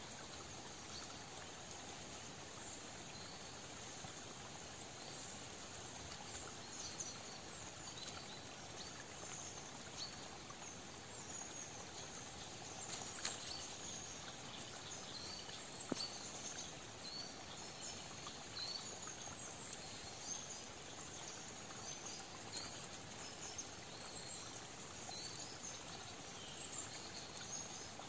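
Forest ambience: a steady soft hiss with many scattered, short, high chirps from small wild creatures, and a single sharp tick a little past halfway.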